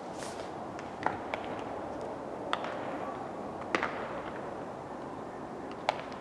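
A handful of sharp smacks, a second or more apart, over a steady outdoor background hiss.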